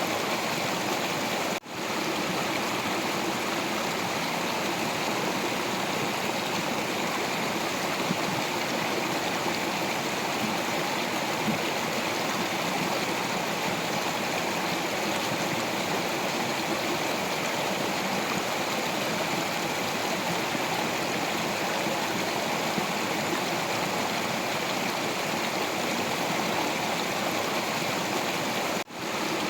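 Stream water flowing and splashing over rocks, a steady rushing with small gurgles. It drops out for a split second twice, once about a second and a half in and once near the end.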